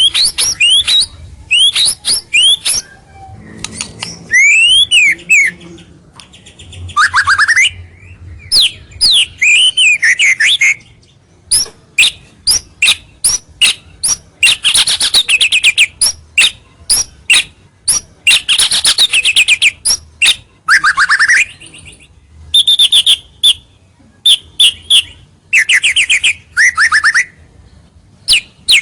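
White-rumped shama (murai batu) singing loudly and continuously: a varied song of clear sliding whistles, rapid trills and quick runs of sharp, clipped notes, phrase after phrase with short pauses. A full territorial song of the kind played to lure rival shamas closer.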